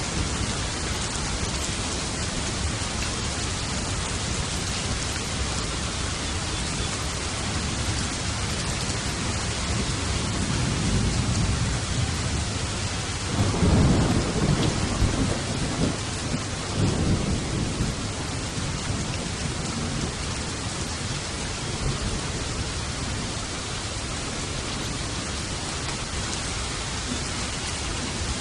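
Steady heavy rain with a roll of thunder that swells about ten seconds in, is loudest in a few rumbling surges a little before halfway, then dies away.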